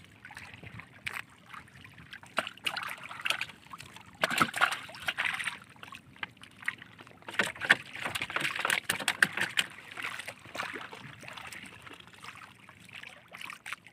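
Sea water lapping and sloshing against the hull of a small outrigger canoe, irregular and uneven, with scattered light knocks.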